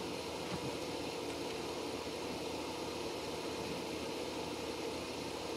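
Steady mechanical hum with a constant droning tone, unchanging throughout.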